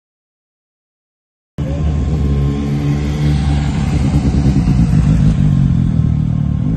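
Motorcycle engines running as several bikes ride past at low speed. The sound cuts in abruptly about a second and a half in, after dead silence, and then holds steady.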